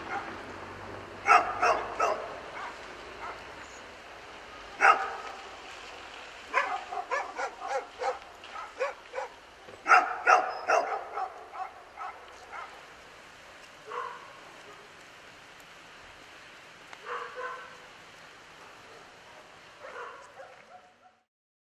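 Dog barking in irregular runs of quick, sharp barks with pauses between, dying out near the end.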